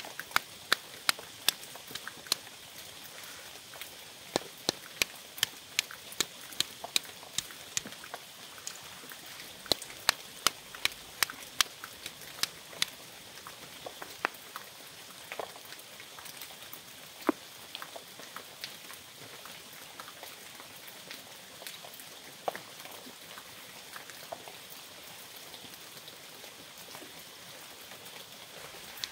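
Walnuts cracked with a hand stone on a flat rock: a run of sharp cracks, about two a second for the first dozen seconds, then sparser snaps as the broken shells are picked apart by hand. Steady rain falls in the background.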